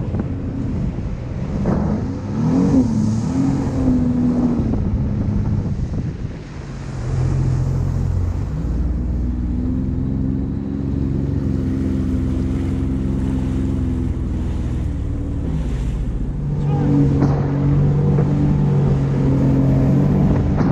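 Personal watercraft (jet ski) engine running under the rider, with water rushing past and wind on the microphone. The engine eases off about six seconds in, holds a steady lower speed for several seconds, then picks up again near the end.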